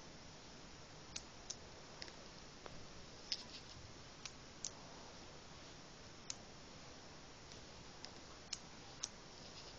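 Small metal magnets clicking sharply as they snap onto each other while being fitted together by hand, about a dozen faint clicks at uneven intervals.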